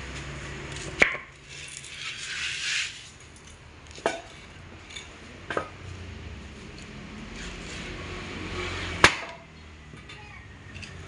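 Spoked motorcycle wheel rim knocked against a wooden block to work out dents: four sharp knocks, each with a brief metallic ring, the loudest about a second in and near the end.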